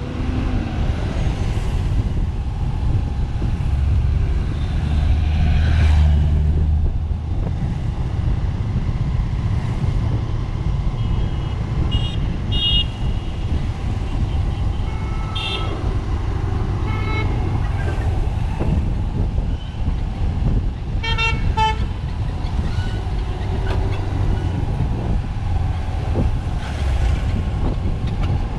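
City road traffic heard from a moving vehicle: a steady low rumble of engine, tyre and wind noise, with other vehicles' horns honking in several short beeps through the middle and one longer honk about three quarters of the way through.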